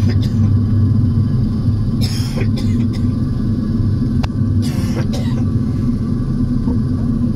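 Saab 340's General Electric CT7 turboprop engine running with its propeller turning, heard from inside the cabin as a steady low drone with a hum. Two short hissy bursts cut through it, about two and five seconds in.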